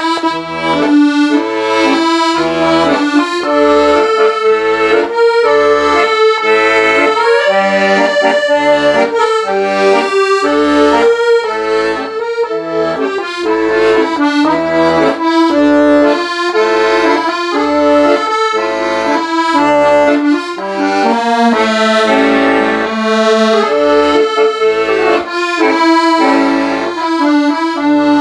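Solo accordion playing a slow song melody with right-hand chords over evenly pulsing left-hand bass notes, loud and full throughout.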